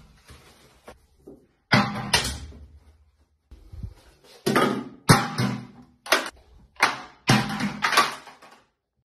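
An aerosol can, an air freshener dispenser and a small basket knocked off a ledge by a cat, clattering and bouncing on a tiled bathroom floor in a string of sharp knocks with a short ring after each.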